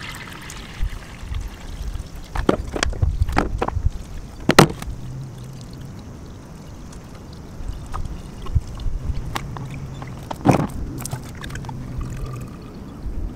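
Water being poured from plastic bottles into the filler neck of an aluminium radiator, filling it for a gravity leak test, with sharp crackles and knocks from the plastic bottles. The loudest knock comes about four and a half seconds in and another near ten and a half seconds, over a low rumble.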